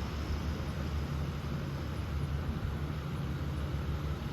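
Antique Signal 16-inch table fan, Model 1251, running on low speed: a steady low motor hum under the even rush of air from the blades.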